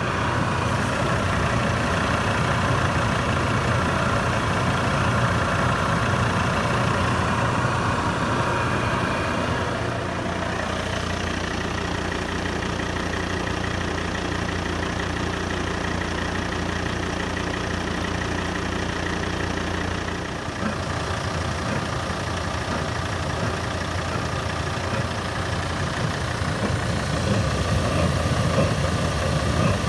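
Volvo ARDIC 912D fuel-fired coolant pre-heater running, with a steady whirring drone from its combustion fan and burner: the heater working again after repair. A steady low hum joins it about ten seconds in and cuts off about twenty seconds in.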